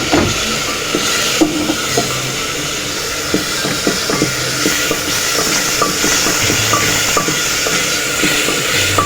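Onion, garlic-ginger paste and ground spices sizzling in hot oil, with a steady hiss and frequent light scrapes and taps of a spoon against the pot as the masala is stirred.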